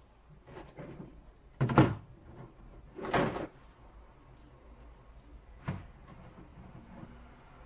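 Black plastic garden bin being handled: a sharp hollow plastic knock about two seconds in, a longer scraping clatter a second later as the bin is lifted and tipped, and a lighter knock near the end.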